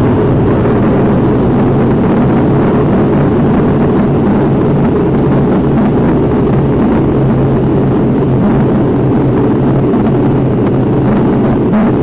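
Turboprop airliner's engines and propellers droning steadily, heard inside the cabin.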